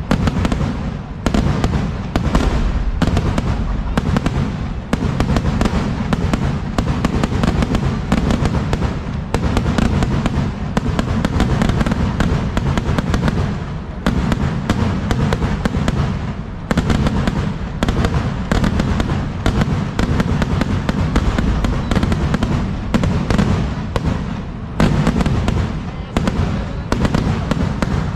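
Ground-fired Kerala festival fireworks (vedikkettu) going off in a long, continuous barrage of rapid cracks and bangs, with a few brief lulls.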